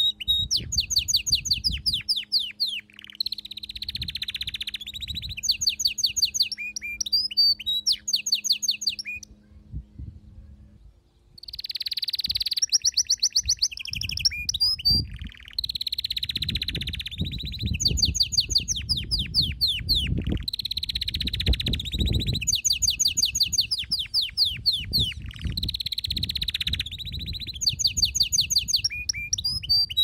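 Domestic canary singing: long phrases of fast trills and rolling repeated notes, broken by a short pause about ten seconds in before the song resumes.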